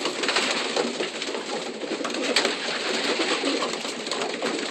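Racing pigeons cooing, many birds at once, a steady busy chorus with one sharp click about two and a half seconds in.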